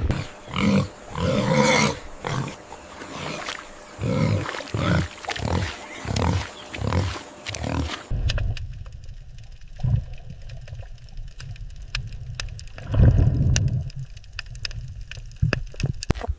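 An animal's short calls, repeated about once or twice a second, then a sudden change to a low rumble with scattered clicks and one louder call near the end.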